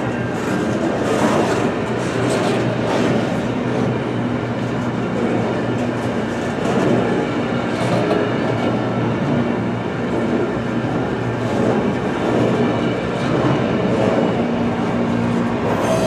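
Freight train cars rolling past, a steady noise of steel wheels running on the rails with irregular short knocks.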